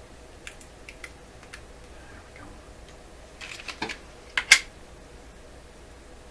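Light plastic clicks and taps from handling a small clear plastic case and the two phonograph styluses taken out of it, set down on a microscope stage. The taps are scattered at first, a cluster comes about three and a half seconds in, and a sharp double click, the loudest, comes about four and a half seconds in.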